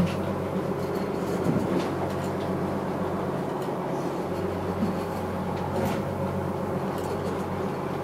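Fishing boat's engine running steadily under way, a constant low drone heard from inside the wheelhouse, with a few faint knocks.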